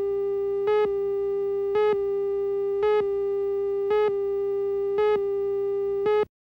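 Videotape countdown leader tone: a steady electronic tone with a short, louder, slightly higher beep about once a second marking each number of the count. The tone cuts off abruptly near the end, leaving dead silence.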